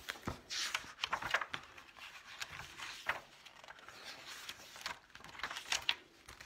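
Rustling and light knocks of a picture book being handled and its pages turned, an irregular string of short paper-and-plastic noises.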